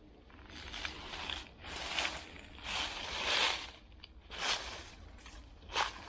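Footsteps crunching through dry leaf litter and brushing against undergrowth, about one rustling step a second.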